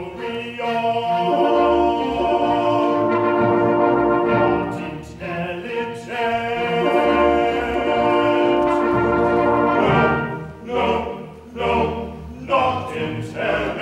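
A man's voice singing an operetta number with pit orchestra accompaniment, in long held notes. In the last few seconds the music breaks into short, separate accents.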